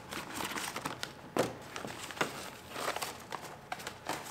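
Plastic water barrier sheet crinkling as it is peeled off a car door's inner panel, with a few short knocks and clicks of the wiring harness against the metal door shell.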